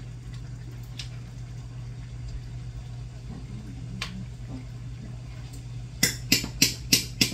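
Metal spoon knocking against the side of a cooking pot of tomatoes: a few soft taps, then a quick run of about six sharp clanks near the end, over a steady low hum.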